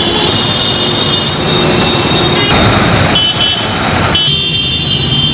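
Street traffic on a wet road: a steady rush of vehicles and tyres with long, high-pitched tones over it. The sound changes abruptly about two and a half and four seconds in.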